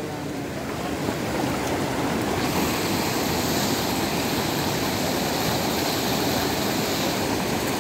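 Fast, muddy river churning over rocks through rapids: a steady rush of water that turns brighter and hissier about two and a half seconds in.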